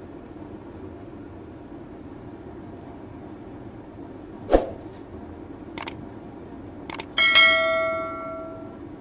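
Steady low rumble of a train car rolling slowly into a station. Over it, a subscribe-button sound effect: three mouse clicks, then a bell chime near the end that rings out and fades over about a second and a half.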